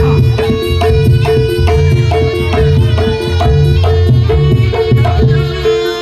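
Loud Javanese traditional music of the kind that accompanies a Barongan dance, with hand drums beating a steady rhythm of about two to three strokes a second over a held tone and heavy bass.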